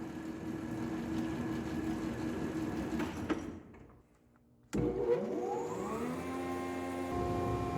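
A woodworking machine's electric motor runs steadily, then dies away about halfway through. Near the end it is switched on again with a click, its whine rising in pitch as it spins up and then holding steady.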